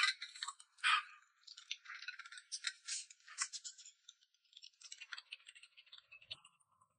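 Close mouth noises of eating and drinking: a person slurping a drink from a glass, loudest at the start and again about a second in, then wet chewing and eating sounds that thin out near the end.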